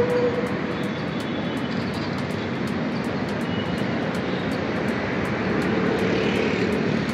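Steady rush of main-road traffic noise, with a brief held tone at the start and a fainter one about six seconds in.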